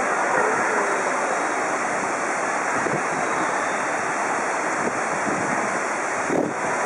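Steady rushing noise, with a brief thump near the end.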